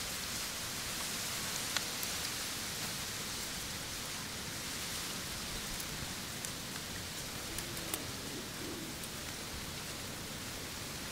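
Steady outdoor background hiss, with a few faint small clicks from handling the rubber tubing and scissors.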